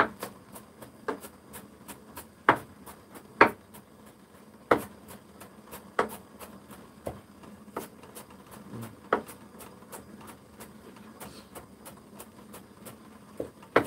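Kitchen knife chopping onion on a wooden cutting board: irregular knocks of the blade on the board, about two or three a second, a few landing harder than the rest.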